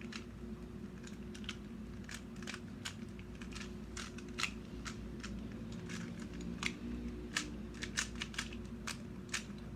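Plastic Rubik's cube being turned quickly in random scrambling moves: a rapid, irregular run of light clicks and clacks from the layers rotating, several a second, crowding together near the end.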